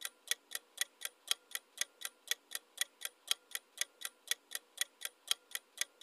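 Clock-style ticking sound effect of a quiz countdown timer: quick, even ticks, about four a second.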